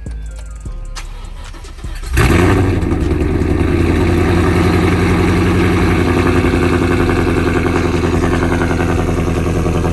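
Ford Mustang GT's 5.0 L Coyote V8 starting after sitting undriven since a crash. It fires about two seconds in with a loud flare, then settles into a steady idle.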